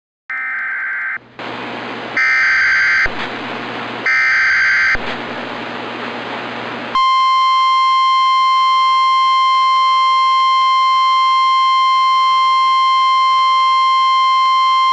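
NOAA Weather Radio alert for a tornado warning. First come three one-second bursts of SAME digital header tones, with radio hiss between them. From about seven seconds in, the steady single-pitched 1050 Hz warning alarm tone sounds. Together they mark the start of a new tornado warning broadcast.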